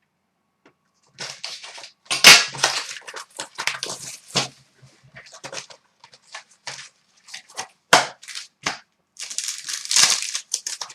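Plastic shrink-wrap and foil trading-card pack wrappers being torn open and crumpled by hand. The irregular crackling comes in clusters, starting about a second in.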